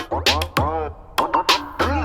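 Hip hop track played through a small Bluetooth speaker as a sound test: rapped vocals over a heavy bass beat.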